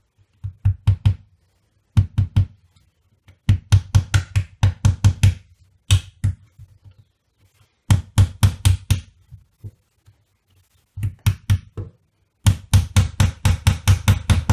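Claw hammer driving small nails into a thin wooden strip on the inside wall of a wooden cabinet, fixing it as a replacement drawer runner. The hammering comes in short runs of quick, sharp blows with pauses between.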